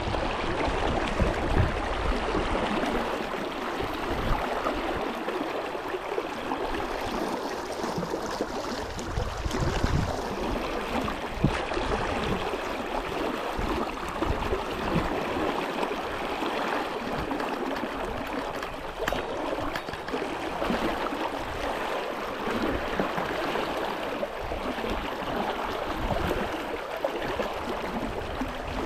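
A brook's water flowing steadily.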